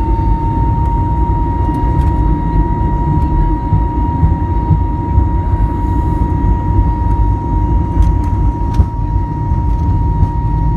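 Airbus A320neo jet engines at high power, heard inside the cabin: a loud, steady low rumble with one steady high whine over it. A few short rattles come about eight seconds in.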